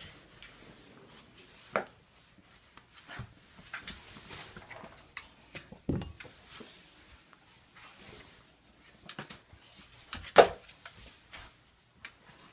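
A puppy playing with toys: scattered light knocks and rustles, with one short, loud sound about ten seconds in.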